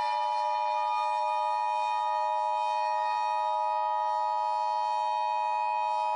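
Emergency Alert System attention signal: a steady two-tone alarm held without a break. Under it an outdoor warning siren sounds, its pitch slowly rising.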